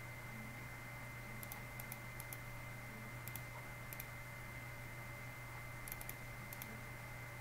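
About nine light, sharp clicks from computer keys and mouse buttons, coming in small groups from about a second and a half in. A steady low electrical hum and a faint thin whine run underneath.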